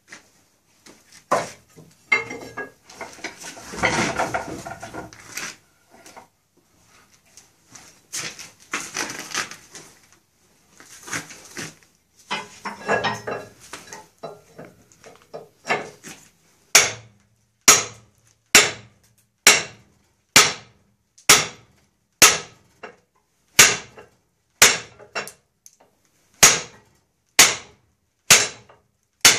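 Irregular knocking and scraping of wood and iron, then steady hammer blows about one a second through the second half. This is an old spoke being driven out of a wooden wheel's nave with a curved iron bar set into a cutout in the spoke.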